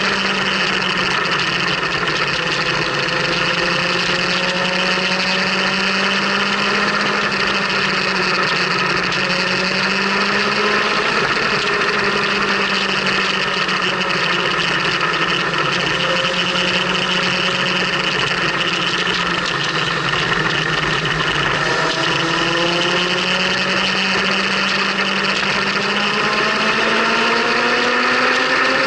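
Motorcycle engine running at road speed under steady wind noise; in the last several seconds the engine note climbs a few times as the bike speeds up.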